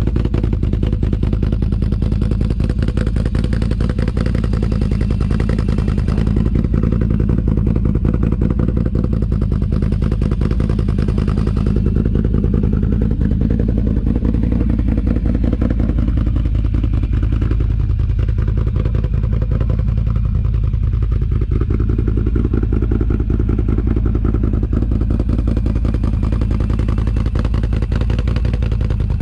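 Can-Am Outlander XMR 1000's V-twin engine running steadily through an aftermarket Yoshimura exhaust.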